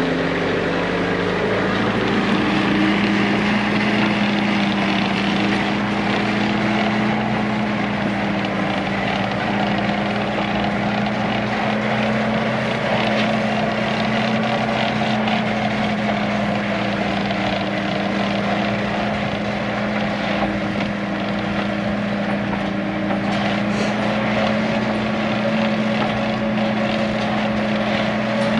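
Heavy machine's diesel engine revving up over the first second or two, then running steadily at high revs under load.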